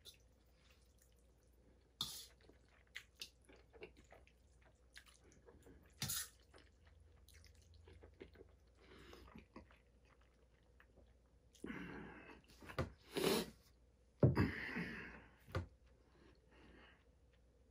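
Faint eating sounds: a utensil clicking and scraping against a stainless steel bowl as pasta is scooped and chewed. A few louder knocks and rustles come about twelve to fifteen seconds in.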